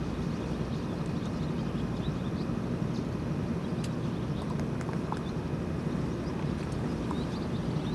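A steady low rumble, like a distant engine, with a few faint clicks.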